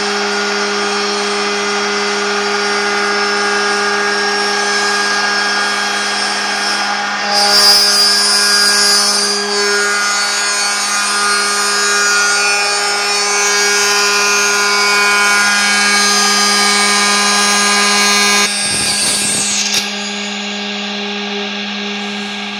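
CNC router spindle running with a steady whine while its end mill cuts a recess into a laminated wood block. The cutting noise comes in loudly about seven seconds in and falls away a little before the end, leaving the spindle's whine.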